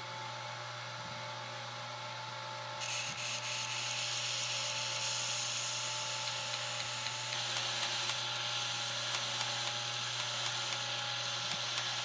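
Belt grinder running slow with a 120-grit belt, its motor humming steadily. About three seconds in, a grinding hiss starts as the titanium lock bar's lock face is pressed to the belt, and it grows fuller a few seconds later.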